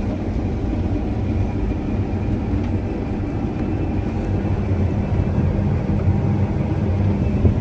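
Combine harvester running steadily while cutting wheat: an even low engine and machinery hum that holds at one level throughout.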